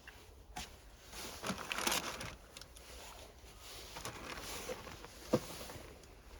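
Hands handling parts: a rustling noise in the first couple of seconds, a few faint clicks, and one sharp click about five seconds in.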